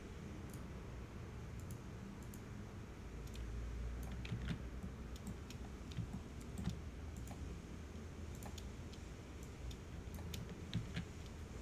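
Scattered faint clicks of a computer mouse and keyboard, over a low steady hum.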